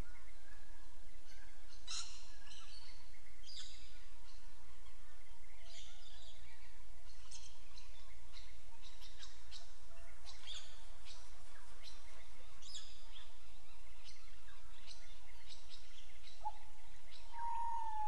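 Pied butcherbirds duetting: many short, high notes scattered throughout, and a clear whistled note about a second long near the end, over a steady low background hum.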